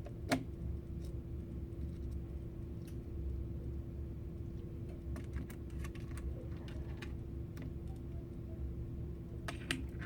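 Small scattered clicks and taps of hands working on a Chromebook's plastic screen assembly and its small screws, with one sharp click about a third of a second in and a few more clicks near the end. A steady hum runs underneath.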